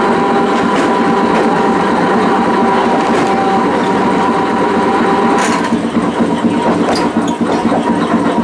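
Iyotetsu Type 50 tram running under power, its nose-suspended traction motors giving a steady whine over the rumble of the car. About five and a half seconds in, the whine drops away, leaving an uneven rumble of wheels on the rails as the tram coasts.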